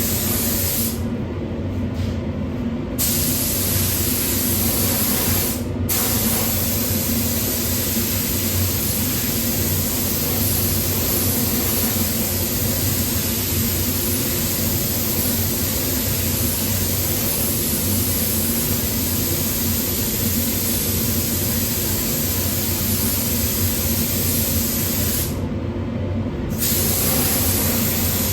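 Air-fed paint spray gun hissing as 2K acrylic paint is sprayed, with the trigger let off for about two seconds near the start, very briefly about six seconds in, and again near the end. A steady low hum runs underneath.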